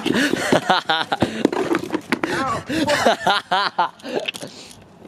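Young men's voices shouting and exclaiming without clear words, two loud bursts with big swings in pitch, about a second in and again around three to four seconds.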